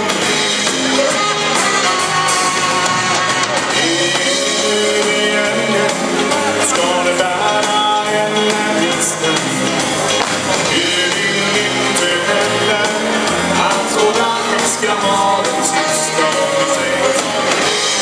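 Live dance band playing a steady, upbeat song with drums, bass and guitar; the vocals are between lines or faint.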